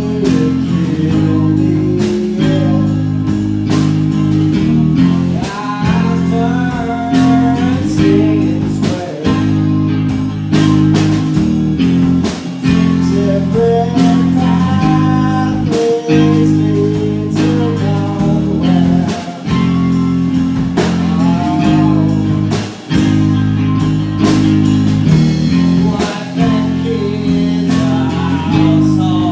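Live rock band playing: electric guitar and bass guitar holding low chords under steady drum-kit hits, with a man singing lead into a microphone.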